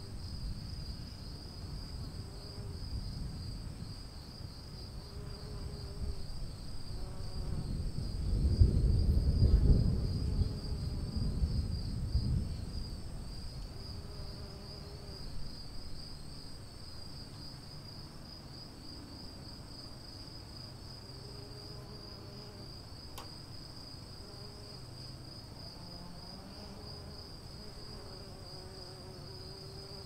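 Crickets chirring steadily as a high, even pulsing drone, with a low rumble of distant thunder that swells about eight seconds in and dies away by about sixteen seconds.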